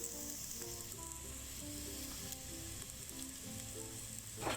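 Onions and carrots sizzling as they fry in oil in a pot, a steady hiss, with light plucked background music over it and a short knock near the end.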